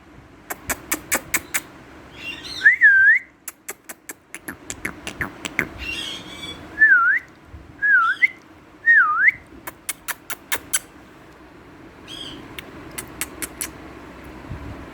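Indian ringneck parakeet eating, its beak making a run of sharp clicks as it works the food, with four short whistled calls that dip and rise again and a few brief chattering calls between.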